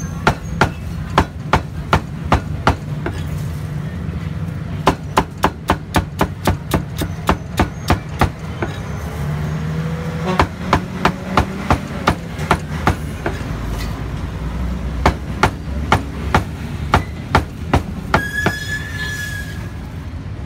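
Kitchen knife chopping through food onto a thick wooden chopping block, in runs of sharp strokes about three a second with short pauses between, over a steady low hum.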